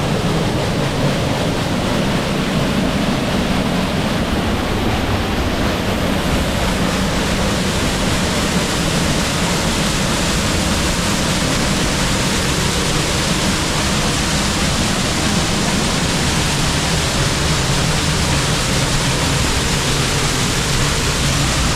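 Waterfall's water rushing steadily up close, one continuous loud wash of noise.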